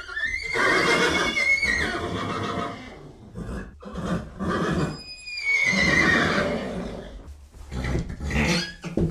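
Horse whinnying: two long, high calls that drop in pitch at their ends, and a shorter call near the end.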